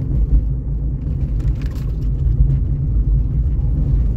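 Steady low rumble of a car driving along the road: tyre and engine noise.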